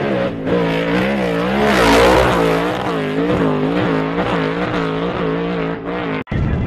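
Off-road race truck's engine at high revs as it charges past, its pitch wavering up and down about twice a second, loudest as it goes by about two seconds in. It cuts off suddenly near the end.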